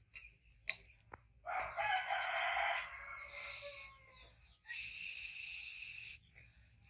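Rooster crowing: a long call about a second and a half in, and another call a few seconds later. Light clinks of a spoon on a plate come just before the first crow.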